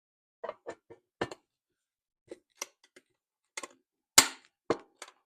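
Front cover of a John Deere GT235 garden tractor being fitted back on: a run of irregular sharp clicks and knocks, the loudest a single knock a little past four seconds in.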